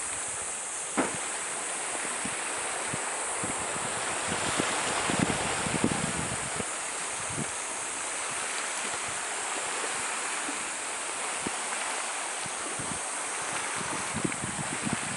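Steady wash of sea water against a rocky shore, with wind buffeting the microphone now and then. A single sharp tap about a second in.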